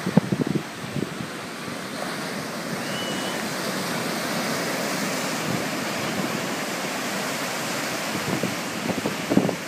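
Surf breaking and washing up on a sandy beach, a steady rush of water, with wind buffeting the microphone. A short faint high whistle sounds about three seconds in.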